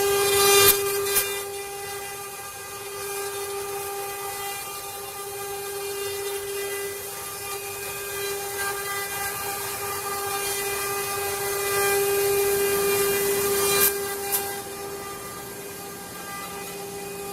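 CNC wood router spindle running at high speed with a steady high whine and a hiss of cutting, with a couple of sharp clicks about a second in and again near the end.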